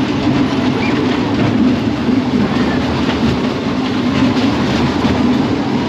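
An SBF Visa Take Off family ride's train of plane-shaped cars running along its rail track: a loud, steady rumble with a constant low drone.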